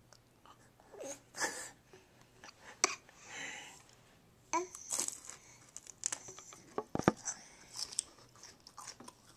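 A baby chewing on a raw celery stalk: scattered small crunches and wet mouth clicks, with a short breathy sound about three seconds in.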